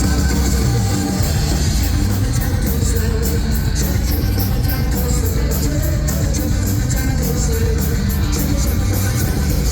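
A live rock band playing loud, heavy music with a thick bass low end and drums keeping a fast, steady beat on the cymbals.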